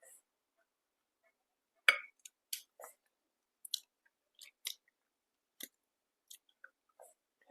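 A person chewing food close to the microphone: a series of short, sharp mouth clicks and smacks, starting about two seconds in, the loudest at the start.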